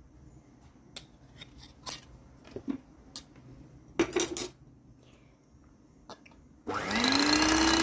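Scattered light clinks and taps of metal beaters and utensils against a ceramic bowl, then about a second before the end an electric hand mixer starts up, its motor whine rising and settling into a steady run as it begins whipping egg whites.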